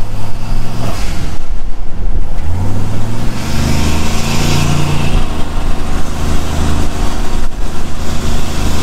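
Engine of a single-turbo Chevrolet Silverado pulling under full throttle. About a second in the throttle lifts and the blow-off valve vents with a short whoosh, then the engine pulls hard again from about two and a half seconds, with a hiss over it, and dips briefly near the end.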